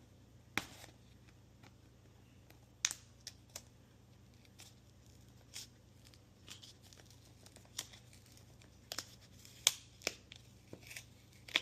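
Sticky paper tear strip on a recycled-paper box being pulled open, peeling and ripping in short, scattered crackles with quiet gaps between.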